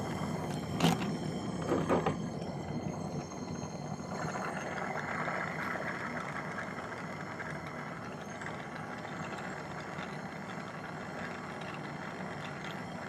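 Jeweller's soldering torch flame hissing steadily, growing louder about four seconds in, as it heats a sterling silver piece to flow solder. Two sharp clicks come in the first two seconds.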